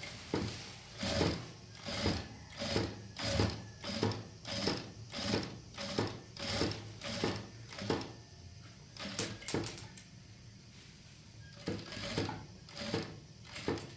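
Sewing machine stitching in a steady rhythm of about two strokes a second. It stops for a few seconds with a couple of sharp clicks, then starts stitching again near the end.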